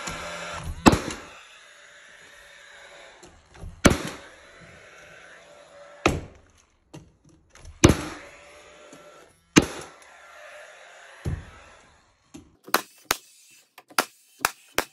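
Paslode cordless finish nailer firing nails into a door casing. Single sharp shots come every couple of seconds, then a quick run of shots near the end.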